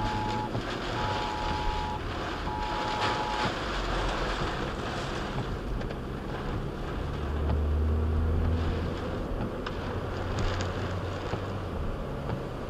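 Tornado-driven wind and heavy rain battering a moving car, heard inside the cabin as a steady noise. In the first few seconds an emergency-alert attention tone of two pitches at once ends one long tone, then sounds two short ones. A deep rumble swells from about seven to twelve seconds in.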